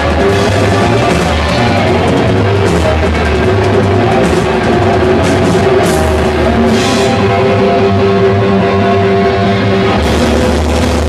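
Loud heavy rock music with distorted guitar and drums.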